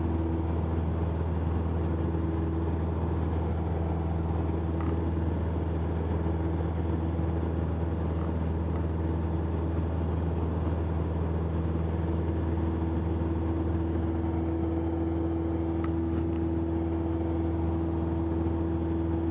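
Cessna 172's piston engine and propeller droning steadily at full climb power just after takeoff, heard through the cockpit intercom.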